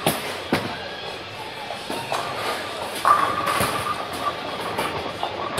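A Johnny Petraglia LT-48 Gold Pearl bowling ball rolling down the lane and crashing into the pins about three seconds in, amid the rumble and clatter of other lanes.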